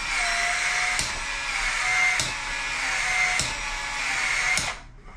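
Cordless PEX expansion tool expanding the end of a half-inch PEX water line: its motor runs steadily with a sharp click roughly every 1.2 seconds as the head expands and rotates, each click followed by a slight dip in pitch, then the motor stops just before the end.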